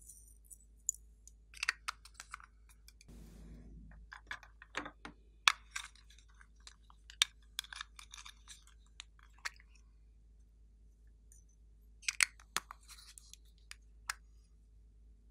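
Small plastic toy containers shaped like ice-cream bars being handled and pulled open: scattered sharp plastic clicks, taps and snaps, some in quick clusters, with a short rustle about three seconds in.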